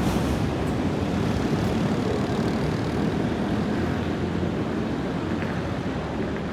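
A city tram moving away along the street, its rumble slowly fading into the general hum of traffic.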